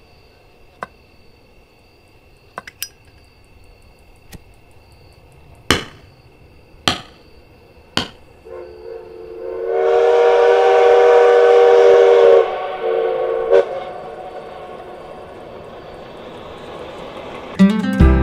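A few sharp knocks, then a steam train whistle blows one held chord of several tones with a hiss of steam for about four seconds, cuts off and echoes away.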